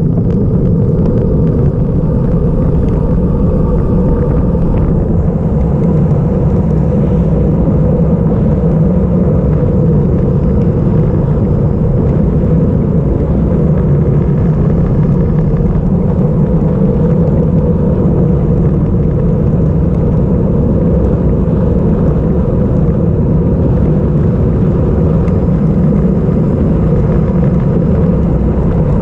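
Wind rushing over a bike-mounted GoPro camera's microphone during a fast road-bike descent: a loud, steady low rumble with no break.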